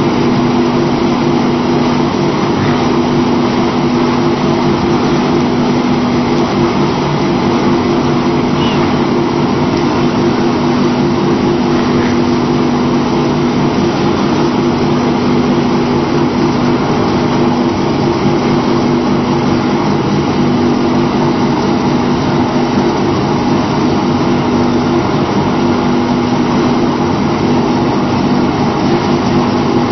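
Paper briquetting machine running steadily: a loud, constant machine drone with a steady low hum and a noisy rush above it.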